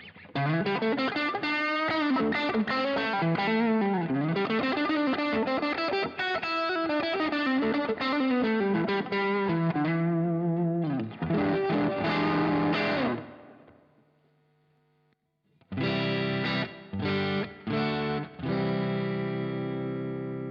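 Fender Stratocaster electric guitar played through a Tube Screamer-style overdrive: a quick lead line with string bends, then held notes that fade to a brief stop about two-thirds in, followed by short chord stabs and a held, ringing chord.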